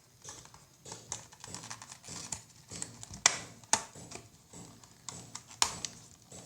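Cardboard retail box of a power bank being opened by hand: irregular small clicks, taps and rustles of the packaging, with three sharper snaps.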